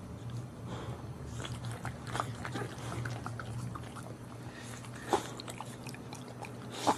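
A boxer mother dog licking and nuzzling her newborn puppies: irregular wet licking and smacking clicks, with two sharper smacks about five seconds in and near the end, over a steady low hum.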